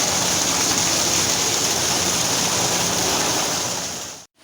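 Steady rush of a waterfall. It fades out and cuts to silence near the end.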